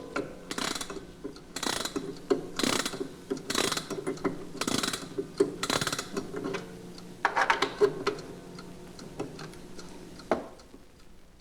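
Mantel clock being wound with its key: a run of ratcheting strokes about once a second as the spring is wound, stopping near the end.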